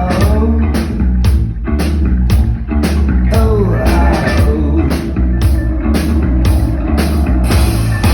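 Live rock band playing loud, with drums hitting a steady beat of about two and a half strokes a second over heavy bass.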